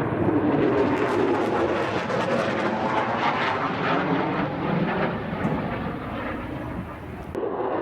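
Jet aircraft flying over: a loud, steady roar that eases slightly, cut off by an edit near the end.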